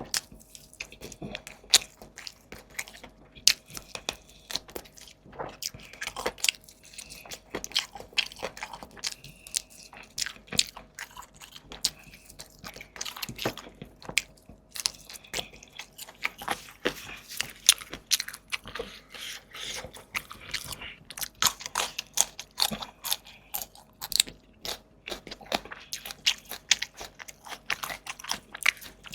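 Close-miked eating: a person biting and chewing food with a quick, irregular run of wet smacks and crunches.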